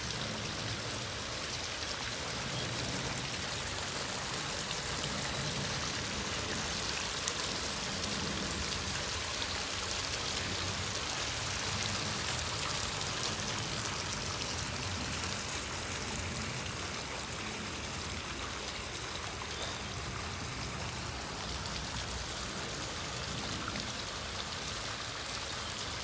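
Koi pond waterfall running: water from a 15,000 litre-per-hour pump spills down a cascade about 5.3 m long, making a steady, even rush of falling and splashing water.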